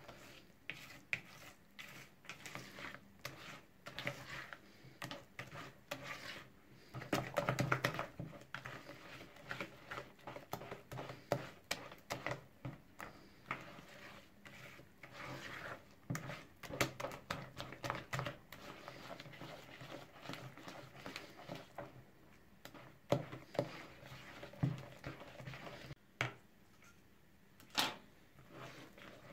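Metal wire whisk stirring thick revani batter in a plastic bowl, with irregular light clicks and taps as the wires knock the bowl's side and a soft squelch of the batter. The tapping thins out for a few seconds past the middle.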